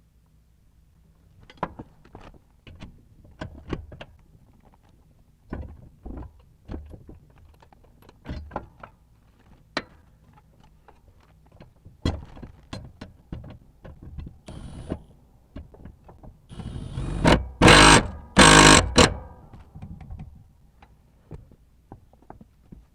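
Metal tools clinking and knocking against a mower blade and deck. About 17 seconds in, an impact wrench runs in two loud bursts of about a second each, tightening the blade bolts.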